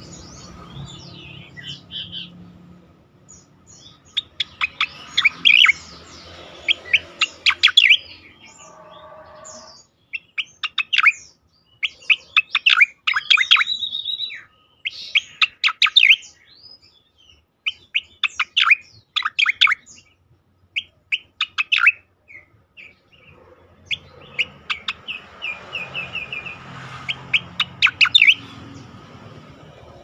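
Striated grassbird singing: bursts of rapid, sharp whistled notes lasting a few seconds each, separated by short pauses, including one held high note and a fast run of evenly repeated notes.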